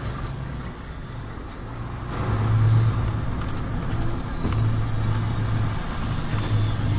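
Truck engine and road noise heard from inside the cab while driving slowly. A low engine hum swells and eases several times and grows louder about two seconds in.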